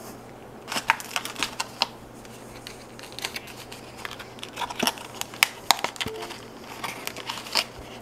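Scattered light clicks and taps from handling a keyboard, mouse and small items at a desk, over a low steady hum.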